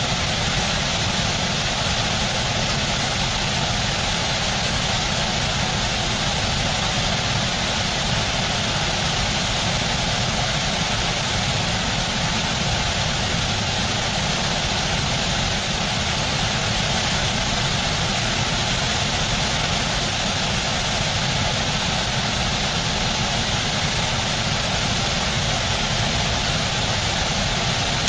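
Steady rushing of white water pouring over a small rocky waterfall, unchanging throughout.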